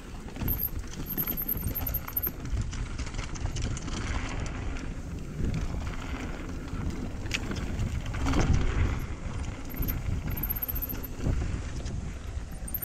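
Mountain bike riding fast down a rocky dirt trail: tyres crunching over loose stones and dirt, with the frame and parts rattling over the bumps and one louder clatter about eight seconds in.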